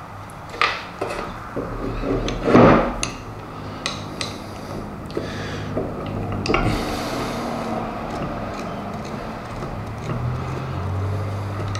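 Small metal clicks, clinks and scrapes of a screwdriver working at the screws of a Wilton Bullet vise and of loose steel screws being handled, with a few knocks on the wooden bench. A low steady hum comes in near the end.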